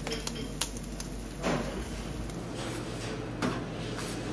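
Scattered knocks and clatter of cooking utensils and dishes, with a sharp click about half a second in, over a steady low hum.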